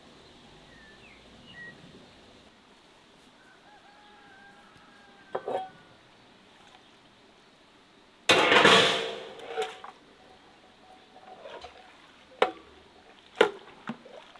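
A few faint bird chirps in the first seconds, then metal basins and kitchenware being handled: a sudden loud noisy burst about eight seconds in that fades over about a second, followed by a few sharp knocks.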